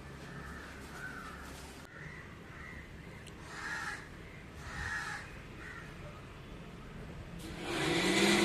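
Short bird calls repeat through the clip, loudest twice at about three and a half and five seconds in. Near the end a louder rushing noise with a rising hum builds, like a passing vehicle.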